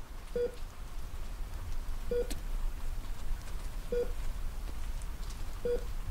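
A short electronic beep at one steady pitch, repeating at an even slow pace about every two seconds, four times, over a low steady hum.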